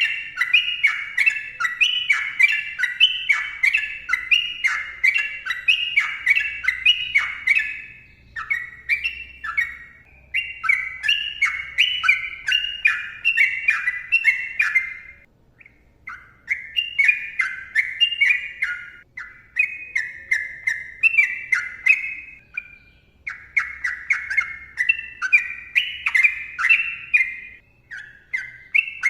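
Yellow-vented bulbul (trucukan) singing: long runs of rapid, bubbly chattering notes, with brief pauses between phrases.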